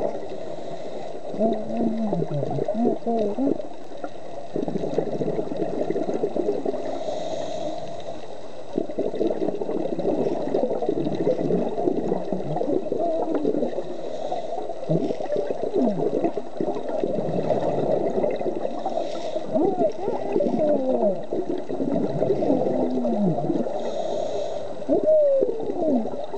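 Muffled underwater gurgling and bubbling heard through an underwater camera housing, full of short pitch sweeps, with a faint hiss every five or six seconds: a scuba diver's regulator breathing and exhaled bubbles.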